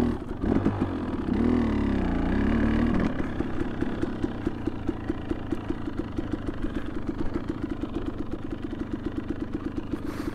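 A 2020 KTM 300 XC TPI's single-cylinder two-stroke engine, revving up and down as the bike is ridden through powder snow for about three seconds. It then settles into a steady, even, rapid putter at low revs for the rest.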